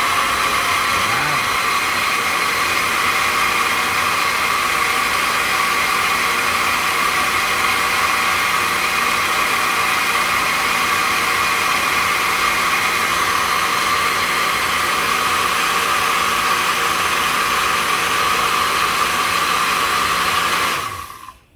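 Countertop blender running steadily, pureeing cooked chickpeas with coconut milk in a glass jar, then switched off near the end.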